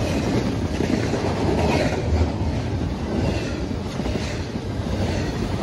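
Double-stack intermodal container train's well cars rolling past close by, their wheels rumbling steadily on the rails.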